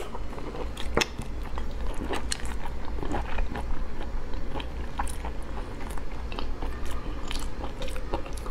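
Close-up eating sounds of a person biting and chewing soft raw lobster meat, with many short wet clicks and smacks of the mouth, over a low steady hum.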